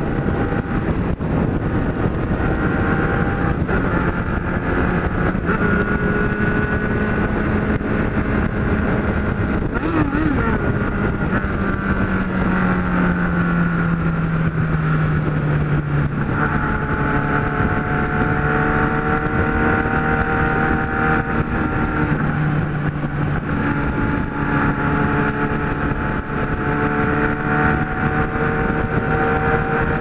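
Kawasaki Z1000's inline-four running through an aftermarket exhaust with its baffle fitted, at a steady cruise under heavy wind rush on the microphone. About ten seconds in the engine note falls over several seconds as the bike eases off, then holds steady at the lower pitch.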